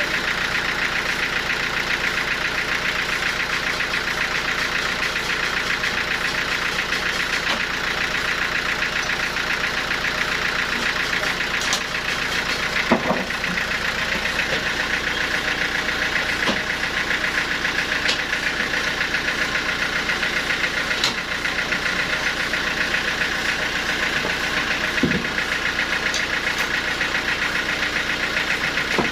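Sawmill machinery running steadily while sawing a teak log, a constant mechanical drone with a fine rapid texture. A few faint knocks stand out now and then.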